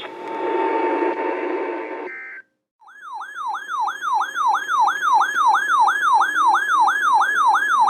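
Electronic emergency alert tone sweeping up and down like a siren yelp, about three cycles a second, starting about three seconds in: the signal that a new flash flood warning is being broadcast. Before it comes about two seconds of broadcast hiss with a faint steady tone, which cuts off into a short silence.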